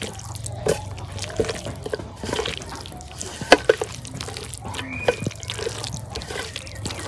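Wet squelching and dripping of raw chicken pieces being mixed by hand with ground spice pastes and mustard oil: irregular sticky clicks with a few sharper knocks.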